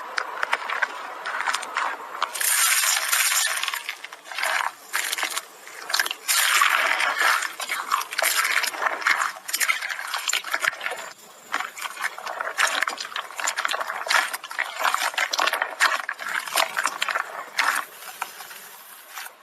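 Slime being squeezed and worked by hand, giving a dense, irregular run of small wet pops and crackling clicks.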